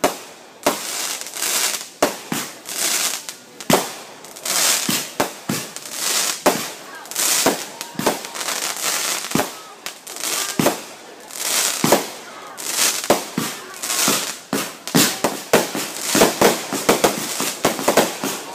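Aerial fireworks going off in rapid succession: a string of sharp bangs as shells burst, with a hiss between them. The bangs come closer together near the end.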